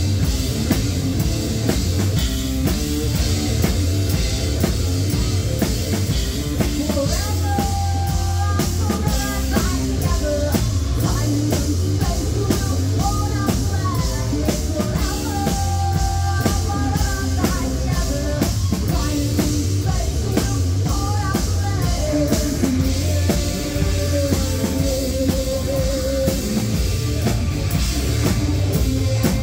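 Live rock band playing: electric guitars over a drum kit, with a melodic line over the top of the continuous, loud band sound.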